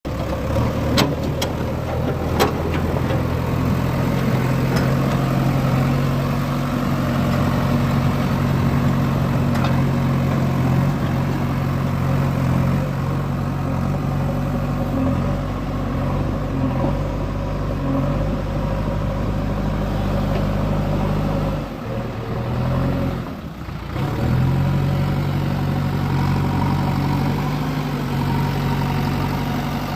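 Backhoe loader's diesel engine running steadily at idle, dipping briefly about three quarters of the way through, with a few sharp clicks near the start.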